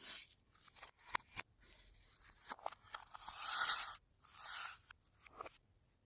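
Fluffy slime being squished and stretched by hand, making sticky crackles and pops with several sharp clicks. The loudest is a longer crackle about three to four seconds in.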